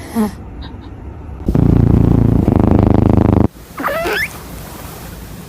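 A cat snoring: one loud rattling snore about two seconds long that stops abruptly, followed about half a second later by a brief high squeak that wavers in pitch.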